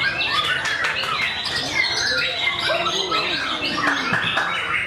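Many white-rumped shamas (murai batu) singing at once from their contest cages: a dense, unbroken tangle of overlapping whistled phrases, quick pitch sweeps and short clicky notes.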